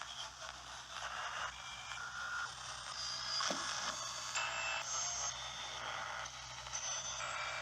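Spirit box sweeping through radio stations: choppy static that changes every half second or so, broken by brief steady tones at shifting pitches, over a low steady hum.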